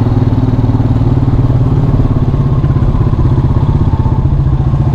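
Honda Rancher TRX350 ATV's 350cc air-cooled engine running steadily with an even pulse, on its freshly rebuilt carburetor.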